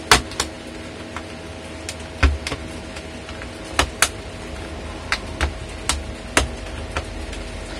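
Sharp plastic clicks and snaps, a dozen or so at irregular spacing, as a thin flat blade is worked along the seam of an HP Pavilion laptop's plastic base case, prying its clips loose. A steady faint hum runs underneath.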